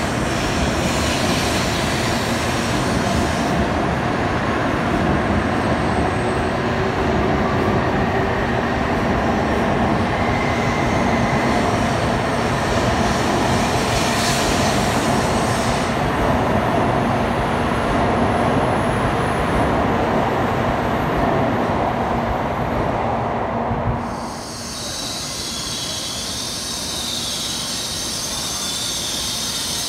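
N700-series Shinkansen bullet train running slowly alongside the platform: a steady rumble of wheels and running gear with a faint hum. About 24 seconds in it changes abruptly to a quieter sound dominated by a high hiss as another Shinkansen noses slowly into the platform.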